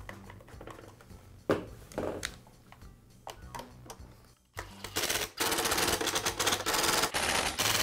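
Cordless brushless drill-driver running in several short bursts, driving the screws that hold the saw's plastic handle, starting about halfway through. Before it, a few knocks and clicks as the handle is fitted into place.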